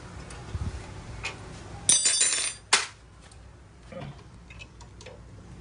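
Loose steel bolts and tools clinking against a metal parts tray: one ringing clink about two seconds in, a sharp click right after it, and a few lighter taps.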